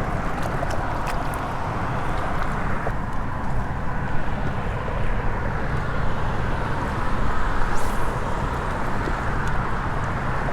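Steady road-traffic noise from the causeway, a constant rumble and tyre hiss with a brief swell about eight seconds in, and a few faint clicks over it.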